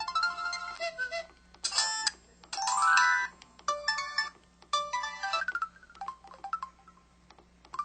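Samsung SCH-B340 mobile phone playing its built-in sound effects one after another: about six short electronic jingles and beeps, each ending before the next starts. One of them is a run of tones stepping downward.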